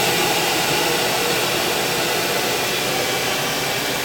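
Turbocompressor rig running steadily: a 2-horsepower air blower drives air through the turbine of a diesel engine's turbocharger, and the spinning compressor blows a jet of air out of a nozzle. The result is a loud, even rush of air.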